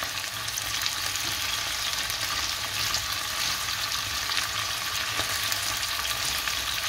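Chopped liver frying in olive oil in a small non-stick pan: a steady sizzle with small crackles, as a fork nudges the pieces about.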